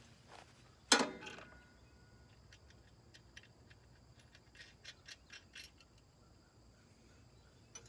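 A sharp metallic clack about a second in, then a run of small metal clicks and ticks. This is the hardware being handled: a hydraulic switching valve with hoses and quick couplers being fitted to its steel mounting bracket, with the bolt, lock washer and nut put on by hand.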